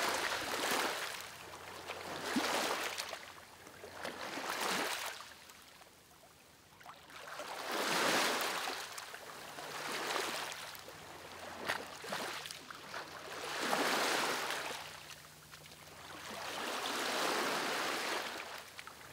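Small sea waves breaking and washing up a sandy shore, swelling and fading every few seconds.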